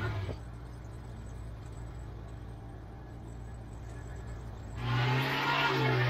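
Engine of a homemade twin-blade sawmill drops back to a steady idle at the start, idles, then revs up again about five seconds in.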